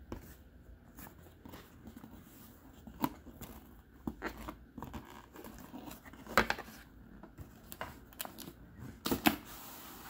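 Cardboard packaging being handled: scraping and rustling as the box is opened and the inner box slid out, with several sharper taps and knocks, the loudest about six and nine seconds in.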